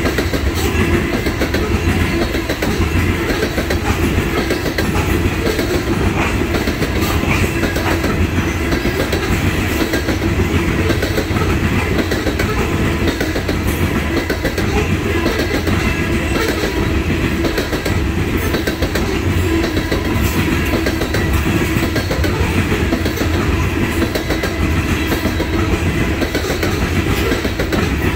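Loaded coal hopper cars of a freight train rolling past close by: a steady rumble with the clatter of wheels on the rails.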